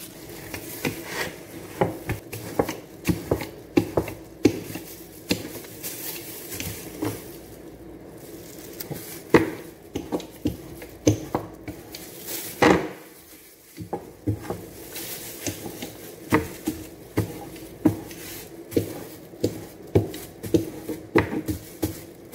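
Irregular sharp knocks and taps on a table top, about one or two a second, as bread dough is pressed and worked flat by hand with a kitchen utensil. A steady low hum runs underneath.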